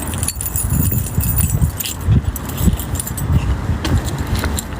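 A bunch of keys jingling in hand, with low thuds of footsteps and phone handling about twice a second.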